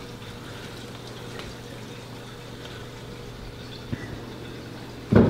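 Steady low hum and hiss of room tone, with a faint click about four seconds in and a sharp knock just before the end.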